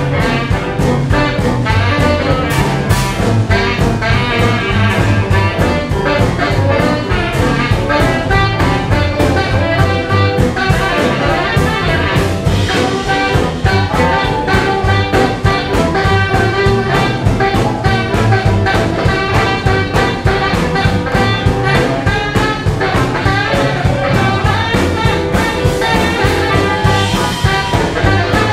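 Live jump-blues band playing with a swinging beat, a tenor saxophone taking the lead over bass and drums.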